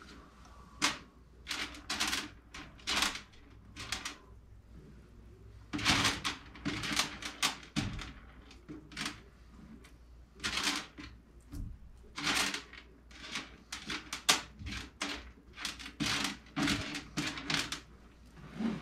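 Irregular clicking and clattering of hand tools and metal furnace parts being handled, many short sharp clacks at uneven intervals.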